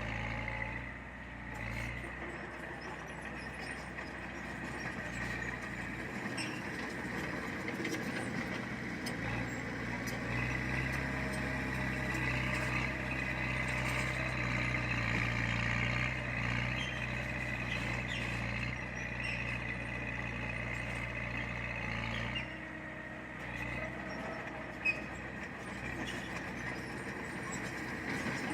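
Diesel engine of heavy earthmoving machinery running steadily, with a steady high-pitched whine over it and one sharp knock near the end.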